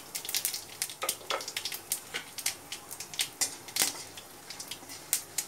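Black mustard seeds spluttering with dried red chillies in hot mustard oil in a kadai: irregular sharp pops and crackles, several a second, the sign that the tempering oil is hot enough. A spatula stirs through them near the end.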